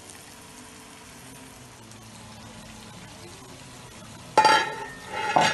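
Oil sizzling faintly and steadily in a frying pan of boiled eggs. Near the end come two loud, ringing metallic clanks of cookware being handled.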